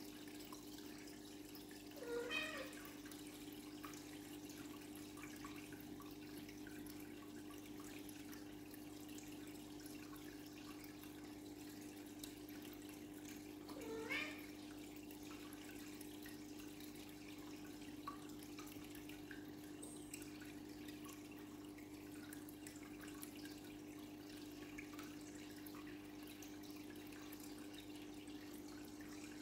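Koi pond water trickling faintly over a steady low hum, with two short rising gurgles, one about two seconds in and one about fourteen seconds in.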